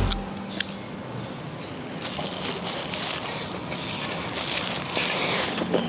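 A person eating: chopsticks clicking against a porcelain rice bowl and quiet chewing, over steady outdoor street background noise, with a few faint high chirps.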